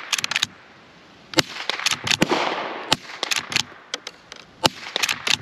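Rossi Rio Bravo .22 LR lever-action rifle firing three shots about a second and a half apart, with a quick clatter of the lever being worked between shots. These are its first rounds, and it cycles without a hitch.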